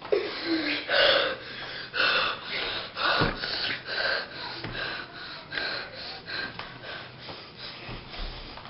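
A boy gasping and panting in quick, breathy breaths, about two a second.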